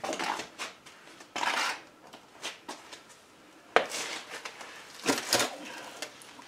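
Handling noises of a person working by hand: short rustles and knocks of items being picked up and moved, with one sharp click a little past the middle.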